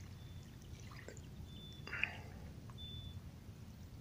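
Faint lakeshore ambience: small water sounds lapping and dripping at the water's edge over a low steady rumble. A short faint high note recurs every second or so, and one sharper click stands out about two seconds in.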